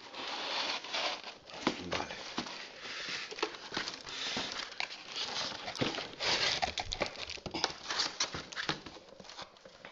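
Cardboard toy packaging being handled: the box insert sliding and scraping out of its cardboard box, with rustling and many scattered light knocks and taps.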